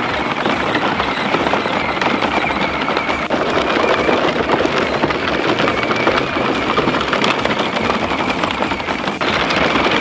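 Plastic wheels of a kids' ride-on toy tractor and its trailer rolling over gravel: a continuous loud crunching and crackling of loose stones.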